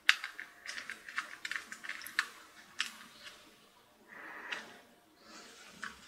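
Rapid small clicks and taps of a solid state drive and its plastic mounting bracket being handled and fitted with a screwdriver, with a short scraping rustle about four seconds in.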